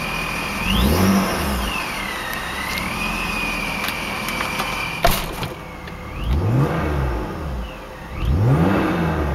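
Supercharged BMW E36 M3 straight-six idling, blipped three times, the revs rising and falling quickly each time. A high supercharger whine follows the revs up and down. A sharp click comes about five seconds in.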